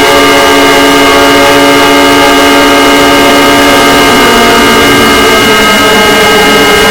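Fan-made emergency alert (EAS-style) alarm: many steady electronic tones sounding together, very loud, over constant noise. About five seconds in, some of the lower tones change pitch.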